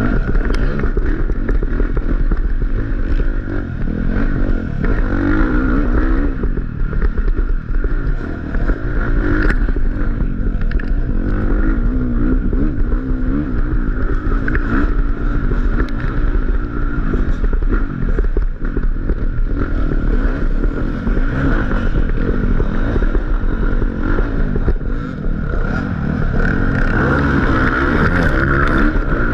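Dirt bike engine revving up and down without a break as the bike is ridden hard over a rough trail, heard from on the bike itself.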